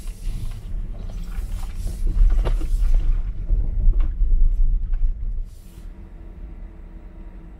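Low rumble of a 2021 Tesla Model Y's tyres rolling slowly over a rough gravel track, heard inside the cabin. A few short knocks come through, and the rumble falls away about five seconds in.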